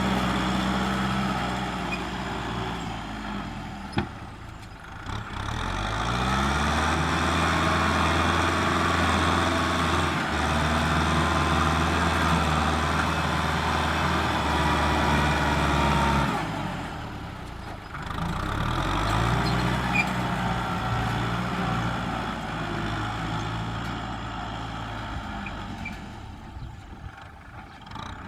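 Kubota M6040SU tractor's four-cylinder diesel engine working under load while pushing soil. Its speed sags twice and climbs back up again, with a sharp knock about four seconds in.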